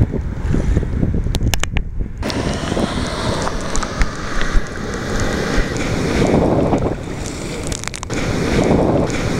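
Wind buffeting the microphone over a low rumble of surf, with a few sharp clicks. About two seconds in, it changes abruptly to the close rush and hiss of breaking waves and splashing water around a camera at water level in the surf.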